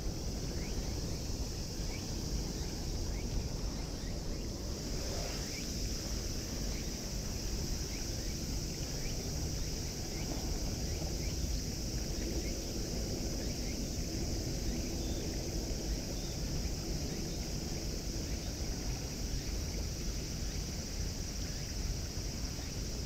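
Light rain pattering on a lake's surface, faint scattered ticks over a steady high hiss, with a low wind rumble on the microphone.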